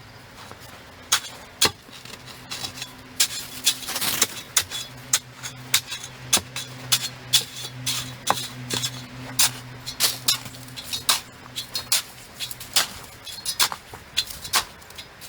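A run of sharp, irregular knocks and clicks, several a second, over a faint steady hum.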